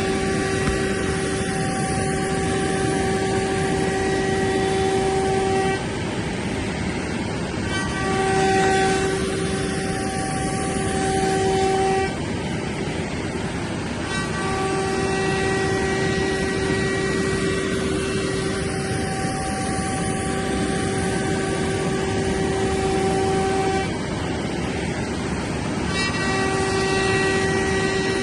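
CNC router spindle running with a steady pitched whine over the hiss of the cutter machining MDF. The whine drops out three times for about two seconds each, while the hiss carries on.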